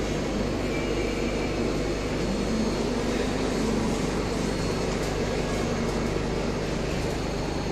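Live-fish display tank's aeration and water pump running: a steady rush of bubbling, churning water over a low pump hum.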